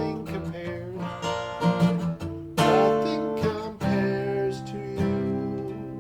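Acoustic guitar being strummed, chords ringing out.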